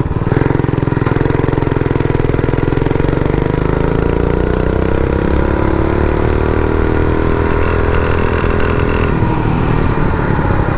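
Stock, governed Predator 212 single-cylinder four-stroke engine on a mini bike running under load, rising in pitch over the first few seconds and then holding steady, with a slight easing about nine seconds in.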